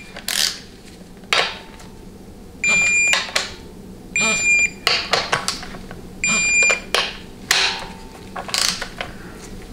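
Electronic torque wrench beeping three times as each valve body bolt reaches its preset torque of 98 inch-pounds, with short rasps of the wrench's ratchet head between the beeps.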